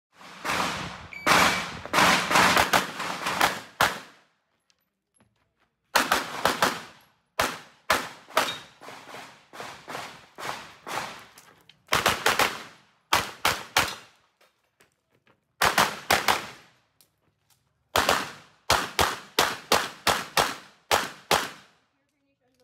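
Pistol fired in quick strings of shots, several sharp reports at a time, with pauses of a second or two between strings.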